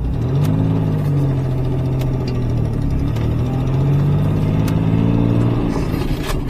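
1987 Pontiac Fiero GT's 2.8 V6 engine pulling the car along the road, heard from inside the cabin. Its pitch climbs about half a second in, holds steady, then drops off near the end.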